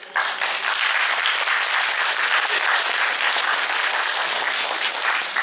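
Congregation applauding, a dense steady clapping that starts suddenly and fades away near the end.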